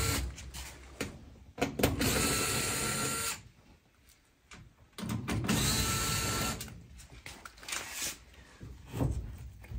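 Cordless drill backing the sheet-metal screws out of an air handler's access panel: two runs of the motor, each about a second and a half with a steady whine, the first about two seconds in and the second about five seconds in, with small clicks of metal and handling between and after.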